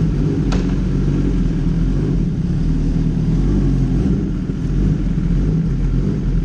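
Kawasaki ZX-10R's inline-four engine running steadily through an Arrow GP aftermarket exhaust, its sound mostly low-pitched. A single sharp click comes about half a second in.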